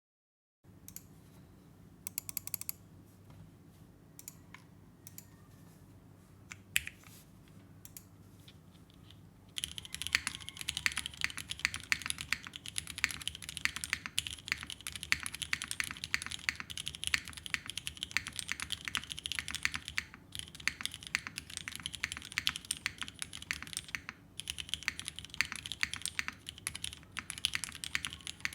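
Mechanical keyboard with vintage Cherry MX Black linear switches and GMK keycaps being typed on: a few scattered keystrokes at first, then from about ten seconds in steady fast typing with a couple of brief pauses.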